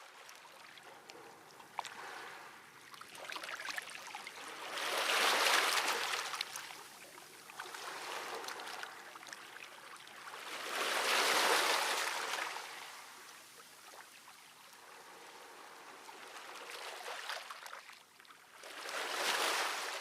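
Waves washing in: a rushing noise that swells and fades three times, several seconds apart, over a low steady wash.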